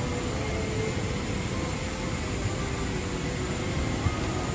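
Steady rush of an airliner cabin's air-conditioning and ventilation while the aircraft stands at the gate.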